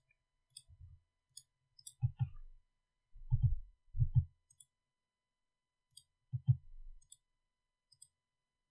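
Computer mouse clicks, a few scattered single clicks, with several louder dull low thumps in between.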